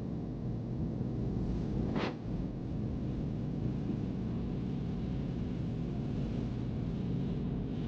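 Steady low rumble of wind buffeting the microphone while riding, with one brief sharp knock about two seconds in.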